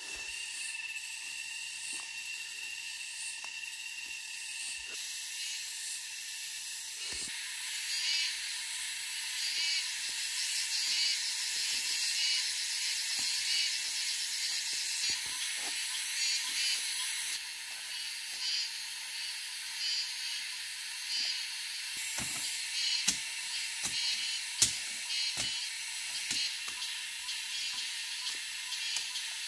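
Forest insects buzzing in a steady high chorus that grows louder about seven seconds in and eases off about seventeen seconds in. Footsteps crunch on dry leaf litter underneath, and a few sharp snaps and knocks of twigs come in the second half.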